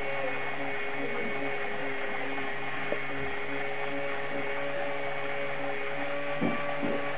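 Motor drive of a Peco NB-55 N scale model railway turntable running: a steady electric hum with a faint regular pulse about three times a second. A light click comes about three seconds in and a soft knock near the end.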